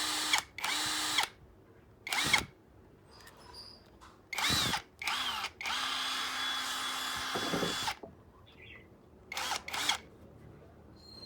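DeWalt cordless drill run in short trigger bursts, the motor whine spinning up and winding down each time, about eight times, with one steadier run of about two seconds in the middle.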